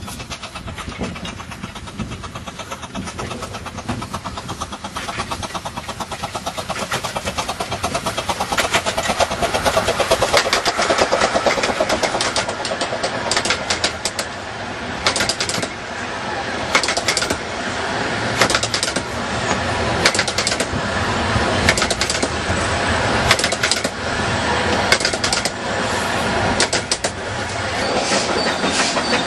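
A 15-inch-gauge miniature railway train approaching and passing close by, growing louder over the first ten seconds or so, then a long run of wheel clicks over the rail joints as its coaches go past.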